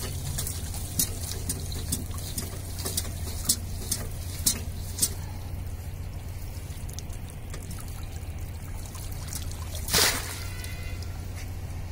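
Water pouring and dripping from a polypropylene-rope shrimp trap shaken over a landing net, with a run of sharp splashes in the first few seconds and a louder splash about ten seconds in. A low steady hum runs underneath.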